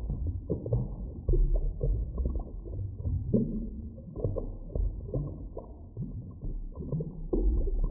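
Muffled underwater ambience for a drowning sound effect: a low rumbling wash with frequent irregular bubbling gurgles, all dull and muffled with nothing in the higher range.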